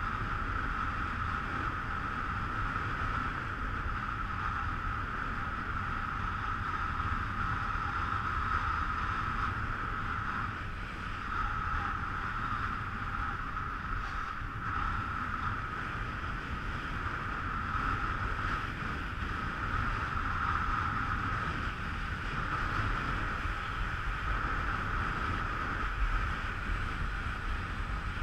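Wind rushing over an action camera's microphone while snow kiting at speed, with skis hissing over hard wind-packed snow: a steady rushing noise with a low rumble underneath.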